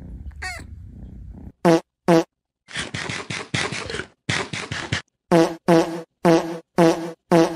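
Fart-like noises: two short buzzy toots, then a longer sputtering stretch, then five more short toots in a row.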